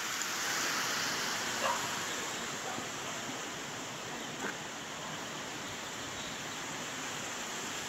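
Steady rush of running water from a stream in a stone-walled channel, an even hiss with no rhythm. A couple of faint short sounds rise above it, about two seconds in and again past the midpoint.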